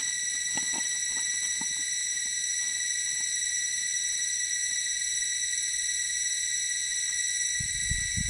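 Steady, high-pitched drone of insects in the forest, unbroken throughout, with a few faint knocks in the first two seconds and a low rumble near the end.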